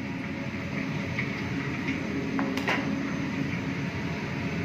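Steady mechanical hum and hiss of a commercial kitchen, with a single sharp clink about two and a half seconds in.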